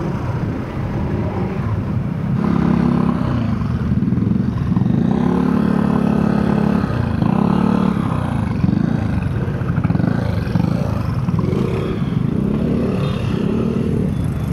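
Motor traffic passing close by: several engines, motorcycles among them, swell and fade in turn over a constant road rumble.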